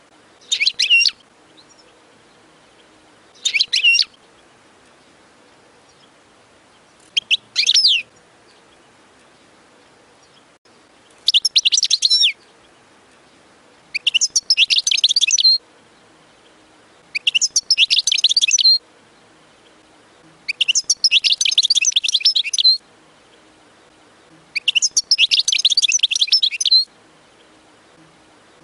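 European goldfinch singing: bursts of rapid, tinkling twitters with pauses between, the first three phrases brief and the later ones running two to three seconds each.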